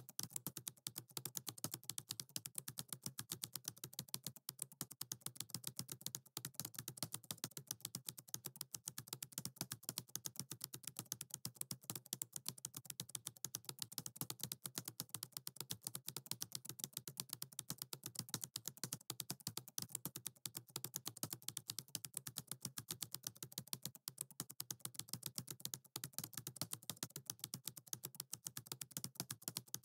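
Computer keyboard typing: a fast, even, unbroken run of key clicks, many keystrokes a second.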